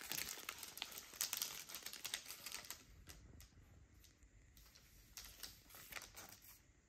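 Faint crackling and clicking of a paper card, clear plastic sleeve and cardboard packaging being handled, busy for the first few seconds and then sparse.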